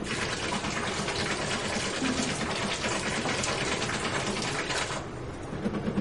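Digital waterfall running: a row of valves chattering rapidly as they release water droplets that patter and splash down. The rattle-and-splash drops away about five seconds in and starts up again at the very end.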